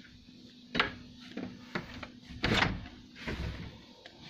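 Sliding glass balcony door being unlatched and slid open: a series of sharp clicks and knocks from the latch and frame, the loudest and longest about two and a half seconds in.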